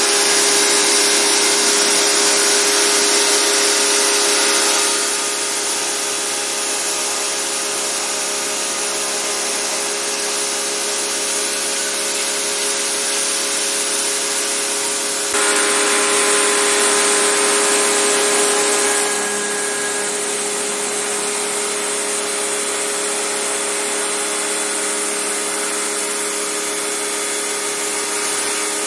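Portable electric pressure washer (hidrojet) running, its motor humming steadily under the hiss of the water jet spraying the evaporator coil of a split air-conditioner's indoor unit. The spray noise drops about five seconds in, rises again around the middle, and drops once more a few seconds later.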